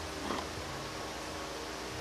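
Steady background hiss with a faint low hum: workshop room tone, with no distinct sound standing out.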